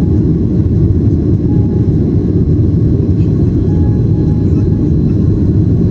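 Jet airliner cabin noise during the climb after takeoff: a loud, steady low rumble of engines and airflow, heard from inside the cabin.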